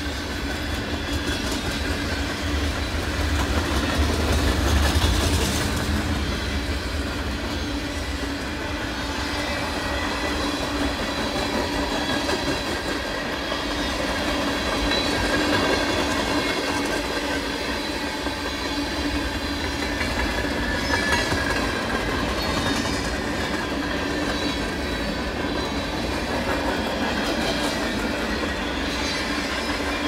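Freight cars of a mixed freight train rolling past: a steady rumble with the clickety-clack of steel wheels over rail joints, and thin high squealing tones from the wheels. The low rumble swells louder about four seconds in.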